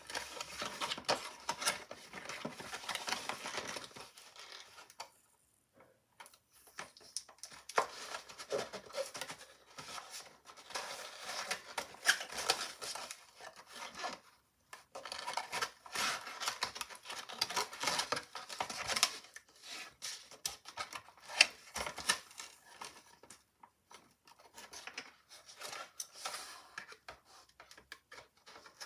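Hands working at a toy's box packaging: irregular rustling, tearing and sharp clicks in bursts, with a few short pauses.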